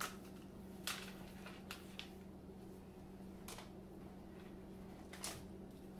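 Several scattered light clicks and taps from a wooden spoon stirring thick cake batter in a plastic bowl and chocolate chips dropping in, over a steady low hum.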